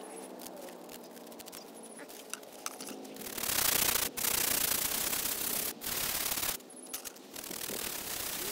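A wooden-handled scrub brush scrubbing the weathered face of an old gravestone. Light scratches for the first three seconds, then a steady scratchy scrubbing broken by a few brief pauses between strokes.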